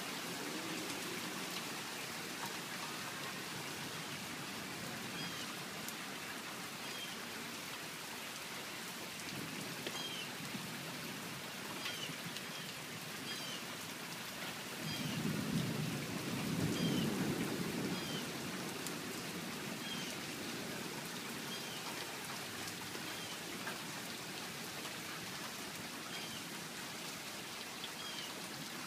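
Steady rain falling, an even hiss of drops. About halfway through a low rumble of thunder swells for a few seconds and fades, and faint short high chirps recur every second or two.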